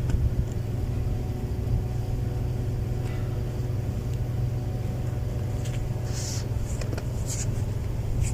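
Steady low motor rumble with a faint constant hum, joined by a few short hissing sounds in the second half.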